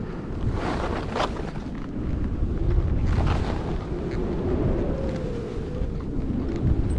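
Edges sliding and turning on packed snow, with a scraping hiss on a turn about a second in and again near three seconds. Under it runs a steady rumble of wind on the moving camera's microphone.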